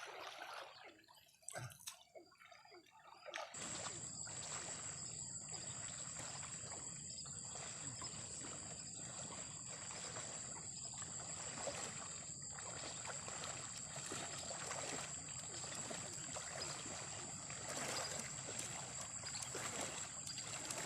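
Flood water sloshing and trickling, with irregular splashes. It gets suddenly louder about three and a half seconds in, and a steady high-pitched whine runs under it.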